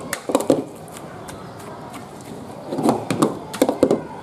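Metal ladle clanking and scraping against a wok while stir-frying beef and noodles, in two quick runs of strikes, one at the start and one about three seconds in, over a steady hiss.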